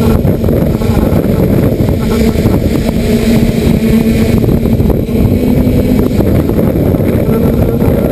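Folding hexacopter's electric motors and propellers humming, heard from the onboard camera through heavy wind buffeting on the microphone. The hum comes and goes under the rough wind noise.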